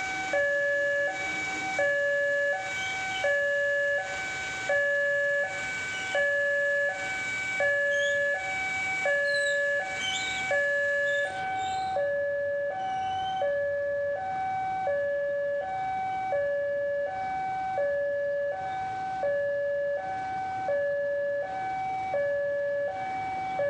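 Railway level-crossing warning alarm sounding a loud electronic two-tone signal, the lower and higher tones alternating about once a second, warning of an approaching train.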